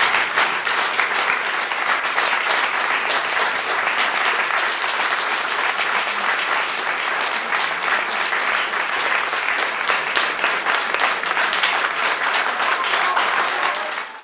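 Audience applauding, many hands clapping steadily after a musical performance; the clapping cuts off suddenly at the end.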